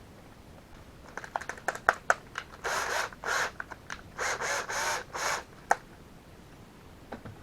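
Handling of small metal hardware: a quick run of clicks and taps, then two rasping, scraping bursts of about a second each, and a last sharp click.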